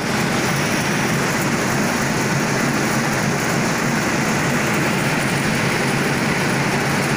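Supertec 1+6 skip stranding machine (630 mm) running at speed, its rotating bow spinning: a loud, steady, even mechanical noise.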